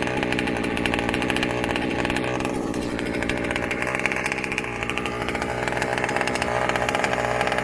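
Small two-stroke gas engine of a 1/5 scale RC monster truck running steadily at idle, with a fast, even firing buzz.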